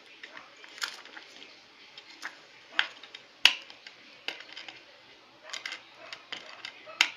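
Hard plastic DVD case and disc being handled: irregular sharp clicks and taps as fingers work at the disc on the case's centre hub.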